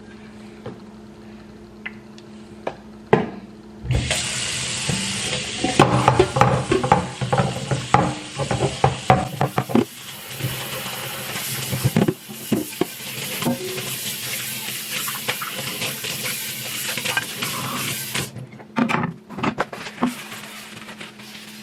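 Kitchen tap running for about fourteen seconds, turned on a few seconds in and off near the end, with pans and dishes clattering and knocking in the sink.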